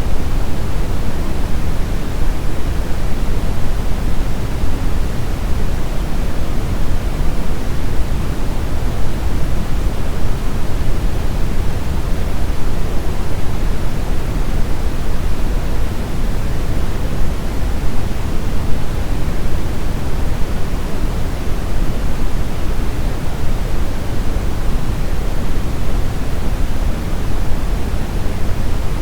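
Steady brown noise: an even, deep rushing hiss weighted toward the low end, without change or events.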